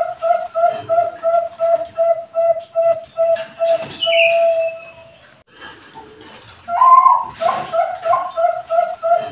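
Bangkok perkutut (zebra dove) singing: a run of short, evenly spaced coos, about three a second, that ends in one longer held note about four seconds in. After a lull of about a second and a half, a new song starts near the end with a higher opening note, and the run of coos begins again.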